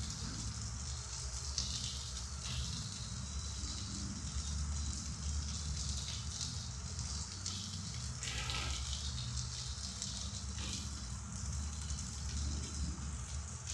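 Steady rain hiss during a thunderstorm, with a low rumble underneath that swells and fades.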